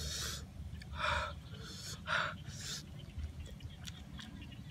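A man breathing in sharply through his open mouth four times in quick succession, short hissing breaths of someone reacting to the heat of chili.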